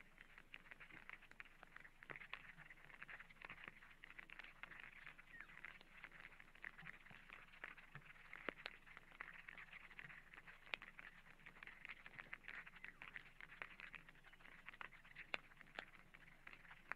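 Faint outdoor field ambience: a steady high hiss with many small, scattered ticks.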